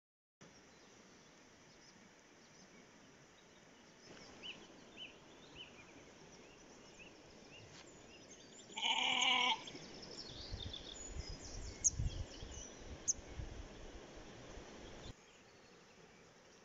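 A sheep bleats once, a short loud call about nine seconds in, over faint high chirps. A few seconds of low rumbling with sharp clicks follow.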